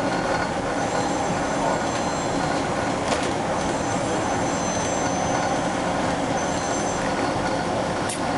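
Steady running and road noise heard from inside a moving bus. Faint high-pitched squeaks and whines come and go, and a sharp click sounds about three seconds in.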